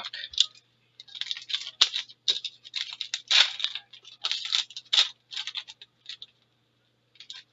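Irregular crinkling and scratching of trading-card packaging being opened by hand. It stops briefly near the end.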